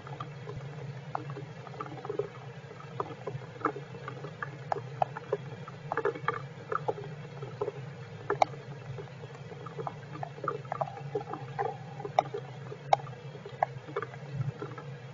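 Heavy rain falling, with irregular sharp drops tapping and pattering over a steady low hum.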